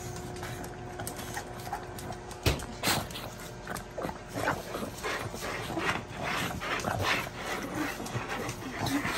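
Pug licking a soft ice-cream-style dog treat out of a small plastic cup: a steady run of quick, wet licks and smacks, with two sharper clicks about two and a half to three seconds in.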